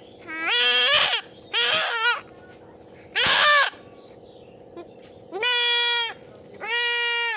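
Goat kid bleating five times, the first three short and wavering, the last two longer and held level; the kid is calling for its mother.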